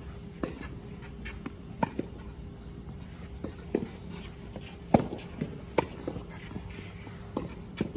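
Tennis rally: sharp pops of balls struck by rackets and bouncing on a sand-filled artificial grass court, about one every second or so, the loudest about five seconds in.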